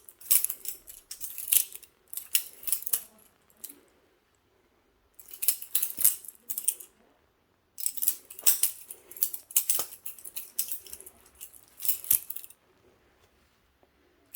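Cheap Chinese-made balisong (butterfly knife) being flipped, its metal handles and latch clacking in quick runs of sharp clicks and rattles. Three bursts come with brief pauses between them.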